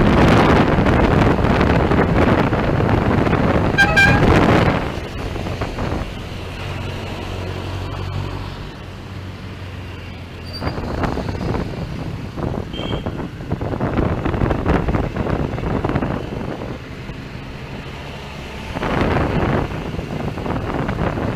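Road traffic with vehicle engines running and a loud rush of noise for the first few seconds, and a short horn toot about four seconds in.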